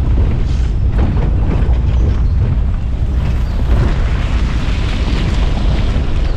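Safari jeep driving along a forest track: a steady, loud low rumble of engine and road noise with wind buffeting the microphone.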